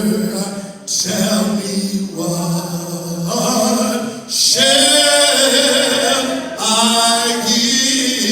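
Voices singing a slow gospel song in long held notes with vibrato, pausing briefly between phrases.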